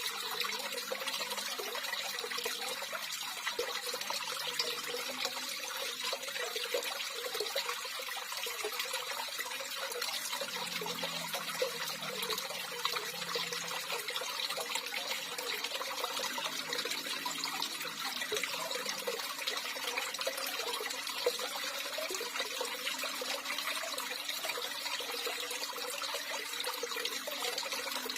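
Running water, trickling and splashing steadily.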